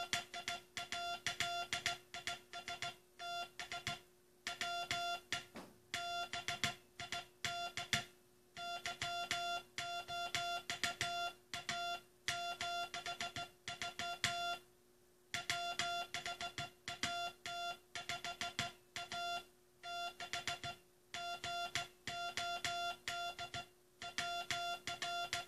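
Hand-sent Morse code (CW): a single steady beep keyed on and off in dots and dashes, with short pauses between words, over a faint steady hum. It is the text of the U.S. Coast Guard's last Morse message.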